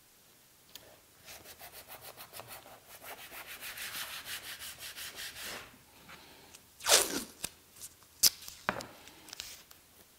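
Blue painter's tape being pulled off the roll in a rapid crackle that grows louder, then torn off sharply about seven seconds in. A few sharp ticks and rubbing follow as the strip is pressed over a knot in a cherry board, sealing the knot before it is filled.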